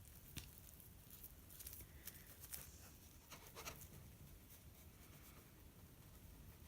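Near silence with faint scratchy rubbing and a few light ticks, from fingers working and smoothing modelling clay on a puppet head.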